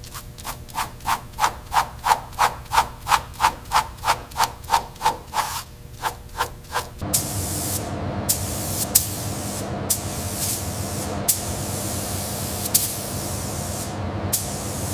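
Hand sanding or scrubbing, in quick back-and-forth strokes of about three a second. About seven seconds in, it gives way to a steady hiss with a few sharp clicks.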